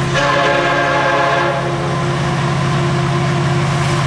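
Horn of a Florida East Coast freight train led by a pair of EMD SD70M-2 diesel locomotives, sounding a steady chord as the train approaches a grade crossing at speed, over the low rumble of the diesel engines. The horn is loudest for about the first second and a half, then holds on more softly.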